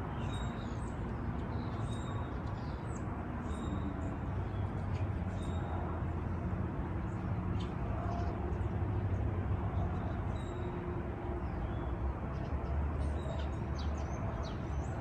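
Outdoor ambience: small birds chirping now and then over a steady low background rumble.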